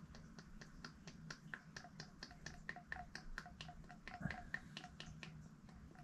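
Vegetable oil being poured through a funnel into the steel tank: a quick, even run of small glugs and clicks, about seven a second. There is one louder knock about four seconds in.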